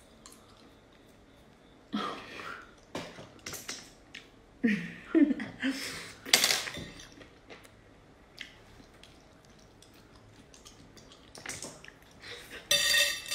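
Small cooked snails being sucked off a skewer and out of their shells: a series of short wet slurps, with chewing sounds. The slurps come in a run in the first half, pause for a few seconds, and pick up again near the end.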